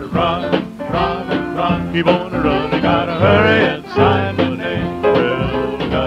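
Late-1940s vocal-group rhythm and blues played from a 78 rpm record: voices singing over instrumental accompaniment with a steady beat, with little treble.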